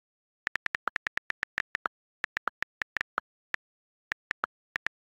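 iPhone keyboard clicks as a comment is typed: a quick, irregular run of about two dozen short ticks, a few of them slightly lower in pitch, starting about half a second in.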